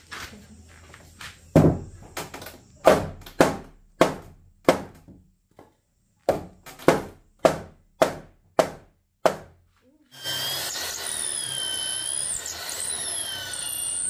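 Hammer blows on wood, about two a second, a dozen in all with a short pause in the middle. About ten seconds in, an electric power tool starts up and runs with a whine that wavers up and down in pitch.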